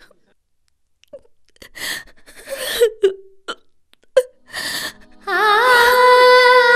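A woman sobbing in short gasping catches of breath. About five seconds in, background music starts: a long wavering melody over a steady low drone.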